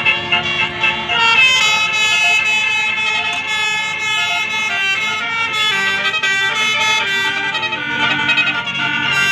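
Basuri multi-tone 'telolet' horn on a tour bus playing a tune: several horn tones sound together and step from note to note, without a break.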